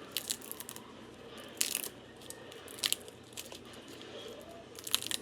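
Plastic packaging crinkling and tearing in short scattered bursts as a Fruit Roll-Up is unwrapped.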